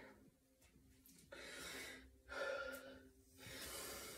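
A woman breathing hard after a high-intensity exercise interval, three faint breaths about a second apart starting about a second in.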